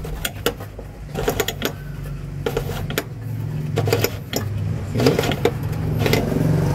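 Clicks and light knocks of a Nissan Grand Livina's in-tank fuel pump assembly and its lock ring being twisted by hand in the tank opening, over a steady low hum that grows a little louder towards the end.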